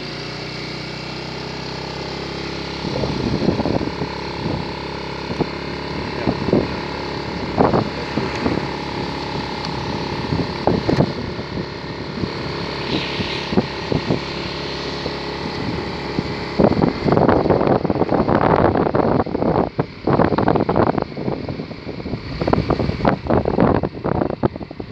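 Motorcycle engine running steadily while riding, with wind buffeting the microphone in gusts that turn heavy and nearly constant about two-thirds of the way through.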